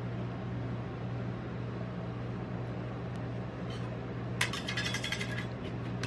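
Steady low hum of a rolled-ice-cream cold plate's refrigeration unit. About four seconds in, metal spatulas scrape and clink briefly against the steel pan.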